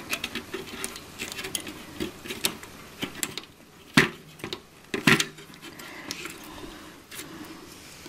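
Plastic keyboard-membrane ribbon cables being pushed into the connectors of a Sinclair ZX Spectrum +2 motherboard by hand: light rustling and small clicks, with two sharper clicks about four and five seconds in.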